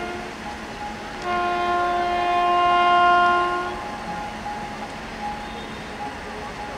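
Air horn of an approaching WAP7 electric locomotive: one long blast of several notes together, from about a second in to nearly four seconds, growing louder before it stops. The tail of an earlier blast is heard at the very start.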